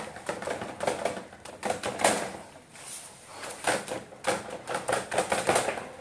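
Irregular clicks, taps and paper rustling from hands handling sheets of paper and the painting board, in uneven clusters.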